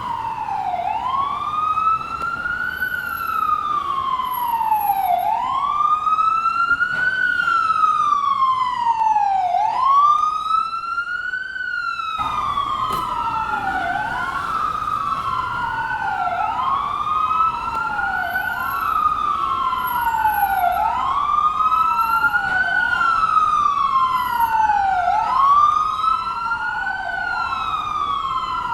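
Ambulance siren wailing: each cycle rises quickly and falls slowly, about once every four to five seconds. About halfway through, a second wail joins out of step, so two overlapping sirens sweep up and down together.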